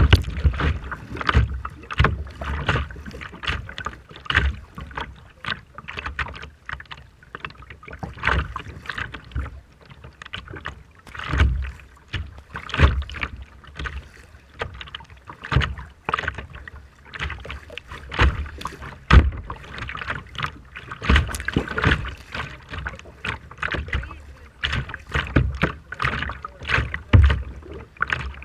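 Choppy sea water splashing and slapping against a small boat in rough water, an irregular run of splashes with heavy low thumps among them.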